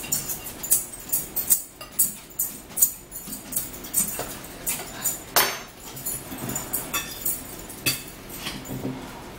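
Music with a quick, tambourine-like beat, mixed with metal cutlery clinking and scraping on a plate. The sharp ticks come about two or three a second and thin out toward the end.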